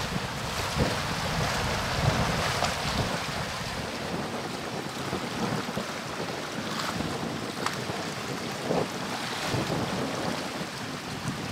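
Wind gusting on the microphone over a steady rush of water.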